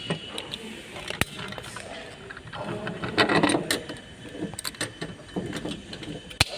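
Irregular clicks, knocks and rattles of small parts being handled while working on a fuel pump assembly, with a sharp click about a second in and another near the end.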